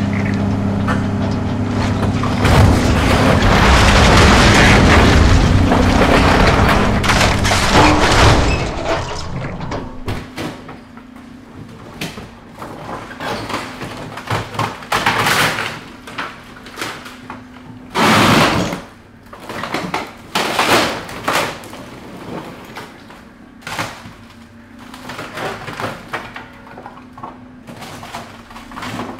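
Large excavator demolishing a house: a long, heavy rumbling collapse of debris over the running engine for the first several seconds. Then scattered cracks, creaks and crashes of breaking material, with a loud crash about eighteen seconds in, over the machine's steady engine note.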